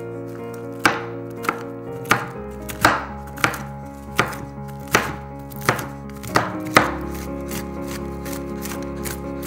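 A knife chopping on a cutting board: about ten firm, separate strokes a little over one a second, which then stop. Background music plays with steady held chords.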